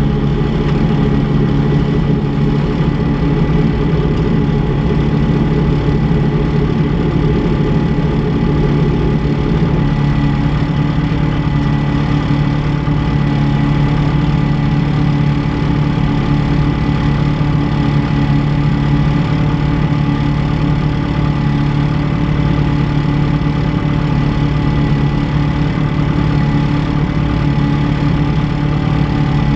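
Race car's engine idling steadily, heard from inside the stripped cabin; the idle note settles slightly lower about ten seconds in.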